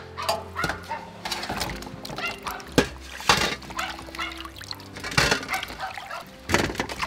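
Water splashing and sloshing in an aluminium bowl as peeled wax gourds are rubbed and washed by hand, in irregular splashes with a few louder ones.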